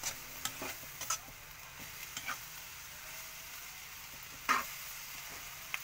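Metal ladle stirring green beans in a metal pan as they fry, scraping and clinking against the pan with a steady sizzle underneath. Several short clinks come through, the loudest about four and a half seconds in.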